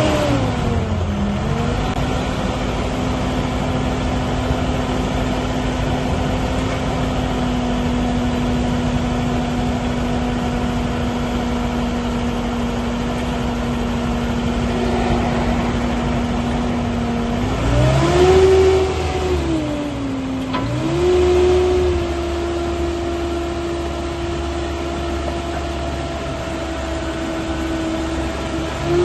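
Merlo P40.17 telehandler's diesel engine idling steadily, then revved up about two-thirds of the way in, dropping back briefly and rising again to a steady higher speed while the hydraulics lower the stabilisers and raise the boom.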